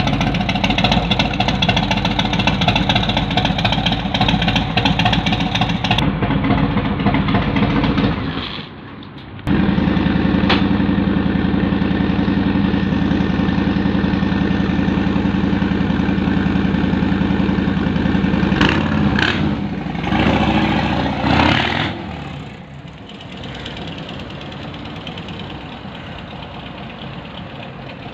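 Harley-Davidson Sport Glide (FLSB) V-twin running through TAB Performance slip-on mufflers: a loud, deep idle that breaks off briefly about eight seconds in and resumes steady. Around twenty seconds in the throttle is blipped a few times, and then the engine sound falls away and stays quieter.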